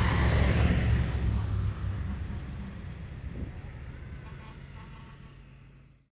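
A fire truck's engine rumbling low and steady, then fading away, until the sound cuts off to silence just before the end.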